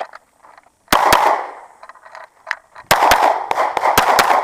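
Pistol shots fired in quick succession: a pair about a second in, then a rapid string of shots in the second half, each cracking sharply with a short echo.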